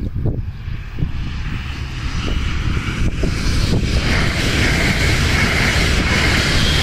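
DB class 245 diesel-electric locomotives hauling a regional express train past, a steady engine drone with a low rumble. From about four seconds in, a rising hiss of wheels on rails joins the drone and grows louder as the coaches come close.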